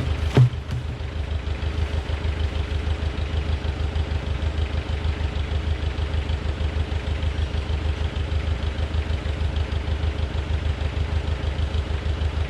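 Tractor engine idling steadily with an even pulse, and a single sharp knock about half a second in.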